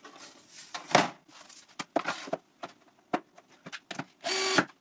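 Wooden boards being handled on a wooden table: scattered knocks, taps and rubs. Near the end a cordless drill runs for a short burst, driving a screw.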